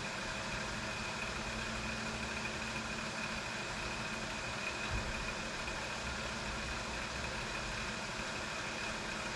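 Monarch 10EE lathe's drive running with a steady hum and a thin high whine, while the carriage is wound along the bed by hand. One soft thump about five seconds in.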